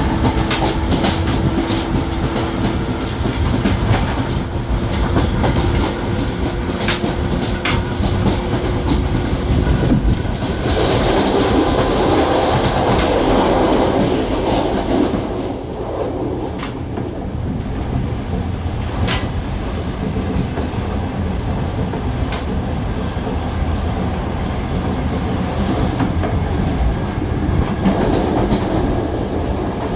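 Ex-Spanish series 2100 electric multiple unit running along the track, heard from inside the car: a steady rumble with sharp clicks from the wheels over the rails, swelling louder for a few seconds near the middle.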